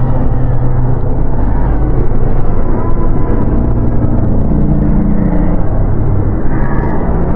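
Dark ambient horror drone: a loud, dense low rumble with held low tones that slowly shift in pitch.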